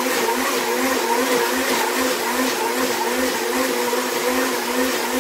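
Countertop blender running steadily, pureeing chopped raw ginger in water.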